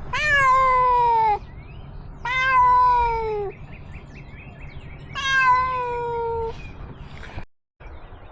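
A cat caught in a live trap meowing three times: long drawn-out meows, each slowly falling in pitch.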